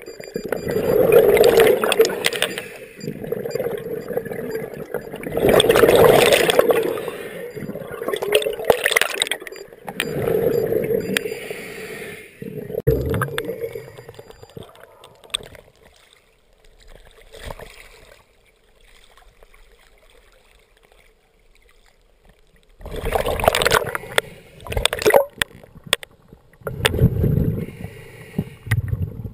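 A scuba diver's exhaled bubbles leaving the regulator, a burst of bubbling about every two to four seconds during the ascent. After a quieter spell, several bursts of water bubbling and sloshing come in the last few seconds, just under the surface.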